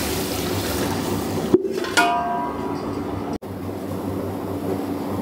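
Busy kitchen background with a steady low rumble. About two seconds in, a metal vessel clangs and rings briefly.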